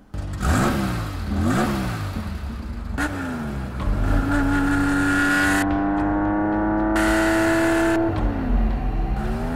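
Air-cooled flat-six of a classic Porsche 911 revving: two quick blips up and back down, then a long pull with the pitch climbing slowly as the car accelerates, with the revs dropping away near the end.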